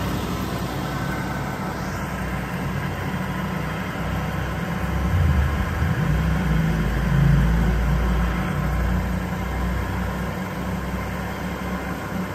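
Atlas Copco SCROLL Star 3.7 kW oil-free scroll compressor running steadily, a fairly quiet hum as it builds pressure in its air receivers. A louder low rumble swells twice, about midway.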